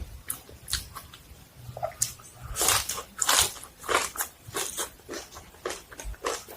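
A person eating: crunchy bites and chewing, a run of irregular crisp crunches.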